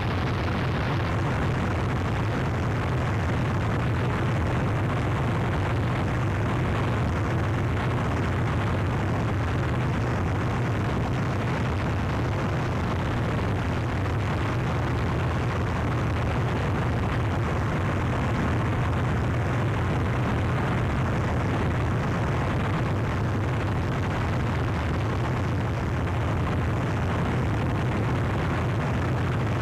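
Harsh noise wall: a dense, unchanging wall of static noise with a heavy low rumble underneath, holding one even level without breaks.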